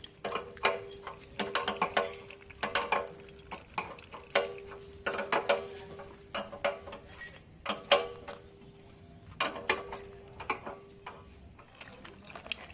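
Irregular metallic clinks and taps of a wrench and other tools against steel parts, a few strikes a second in clusters. A faint steady hum runs underneath.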